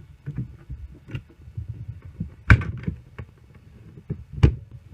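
Plastic laptop case and keyboard being forced apart by hand: a run of small clicks and creaks, with two loud sharp snaps, one about two and a half seconds in and one near the end.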